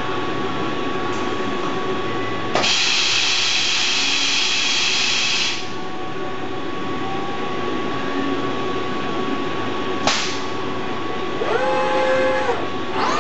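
Running noise of a Haas CNC mill tended by a Fanuc R2000 robot, with a steady whine. A loud hiss lasts about three seconds, starting a couple of seconds in, and a sharp click comes near ten seconds. Near the end come whines that rise, hold and fall, as the robot's servo motors speed up and slow down.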